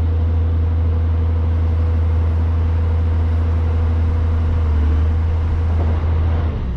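Large engine running steadily at constant speed, a deep hum with a steady tone above it. The note shifts slightly about five seconds in and changes near the end.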